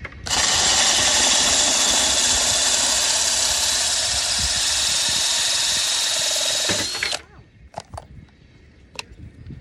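Power drill boring a hole through a ceramic tile, the bit guided through a hole in a wooden block clamped over the tile. It runs steadily for about seven seconds, then winds down and stops.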